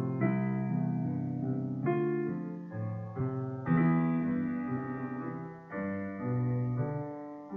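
Solo piano playing slow chords, each struck and left to ring and fade before the next, about one every second or so.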